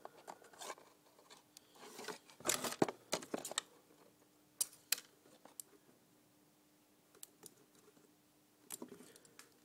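Hands working on small parts, making scattered small clicks, taps and rustles in irregular clusters, over a faint steady low hum.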